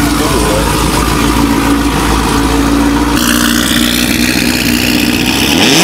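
Supercharged Chevrolet SS's 6.2-litre V8 idling with a choppy, loping beat from its big cam, loud and close behind the exhaust. A rev starts to climb near the end.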